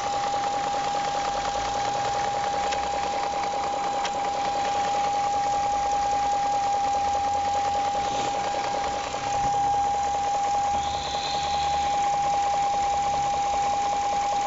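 2001 BMW 740iL's 4.4-litre V8 running steadily with a light, fast, even knocking, of a cause the owner cannot identify. A steady high-pitched whine runs over it.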